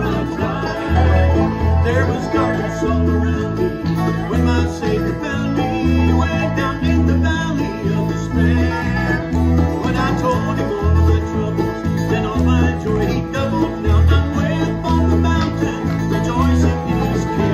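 Bluegrass band playing an instrumental passage: a picked banjo, strummed acoustic guitars, a resonator guitar and a bass guitar walking steadily underneath.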